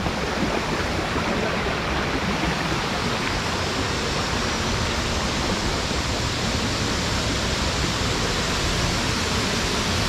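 Rushing water: a steady, even noise that does not change.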